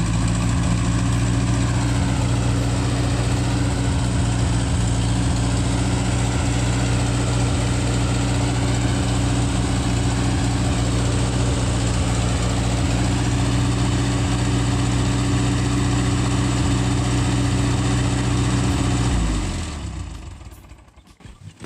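Gehl Hydracat 4400 skid steer's engine running steadily, then shut off near the end and dying away.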